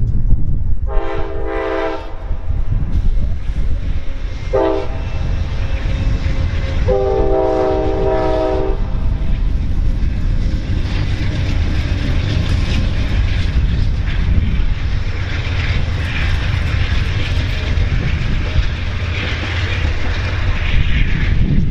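Amtrak GE Genesis diesel locomotive sounding its horn for a grade crossing: a long blast about a second in, a short one near five seconds and another long one near seven, then the passenger cars rolling past with a steady rumble and wheel clatter on the rails.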